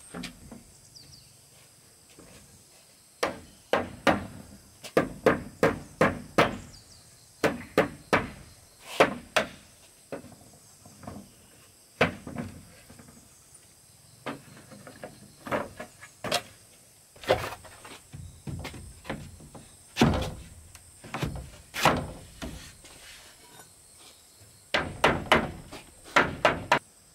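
Hammer blows on wood, in quick runs of a few strikes with short pauses between.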